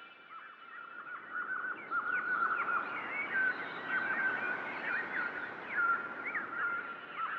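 Many small birds chirping in quick short calls over a steady hiss that swells through the middle.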